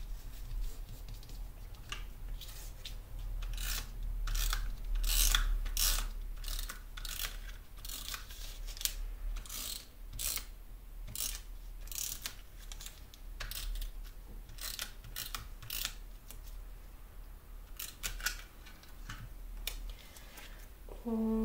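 Glue roller run in quick repeated strokes over a paper doily: a string of short rasping clicks, busiest in the first half, along with paper being pressed and handled.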